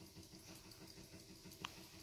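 Wilesco toy steam engine running faintly with a rapid, even puffing rhythm as its flywheel turns, winding down as the boiler's steam is nearly spent. A single short tick about one and a half seconds in.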